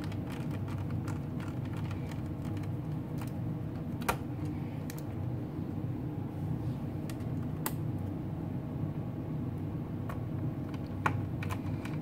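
Scattered light clicks and taps of a small screwdriver working screws into a laptop's plastic bottom cover, over a steady low hum.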